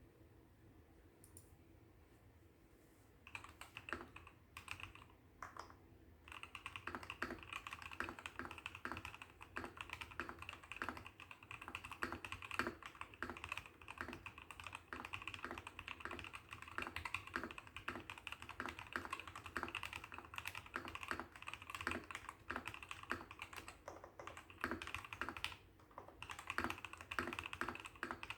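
Typing on a BBOX60 mechanical keyboard with lubed Gateron Ink Black linear switches, XDA keycaps and packaging foam and felt as case dampening: a stream of keystroke clacks. A few scattered presses about three seconds in give way to fast, continuous typing, with a brief pause near the end.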